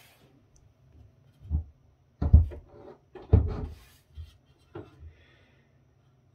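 Metal rack-mount controller cases being handled and set down against each other: a few dull knocks and thuds with light scraping. Two louder thuds come a second apart just past the middle, followed by a couple of lighter taps.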